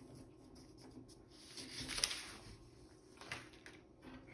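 Sheets of paper sliding and rustling softly against a paper-covered tabletop as they are moved, with a slightly louder swish about two seconds in.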